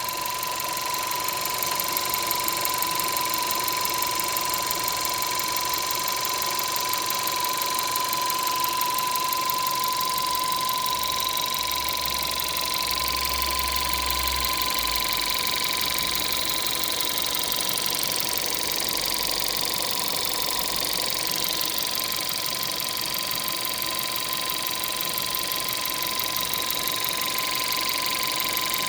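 A motor or engine running steadily, with a constant high whine and a fast, fine rattle over it, recorded as an abnormal noise.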